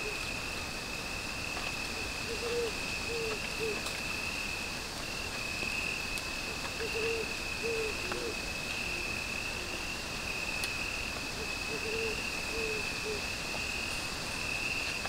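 Night insects, crickets, keep up a steady high trill. Over it come short, soft, low hooting notes in runs of three or four, repeating every few seconds.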